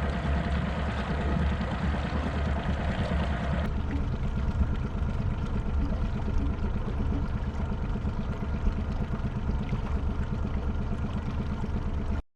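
Boat motor running steadily at trolling speed, a continuous low hum. It cuts off abruptly near the end.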